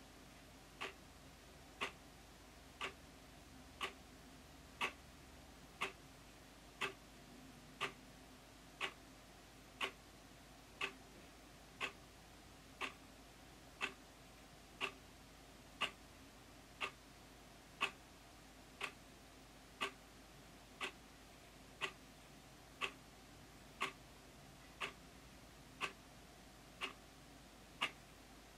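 Wall clock ticking, one loud, sharp tick every second at an even pace.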